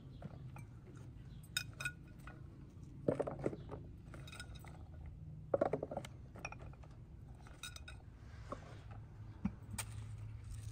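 Clinks and knocks of ceramic bowls, some with a brief ring, and dull thuds as sliced carrots are tipped from a bowl into a large plastic jar, at irregular intervals; the loudest knocks come about three seconds and about five and a half seconds in.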